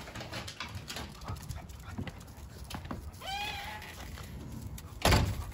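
A pug's short, high whine about three seconds in, among scattered light clicks, then a loud thump near the end.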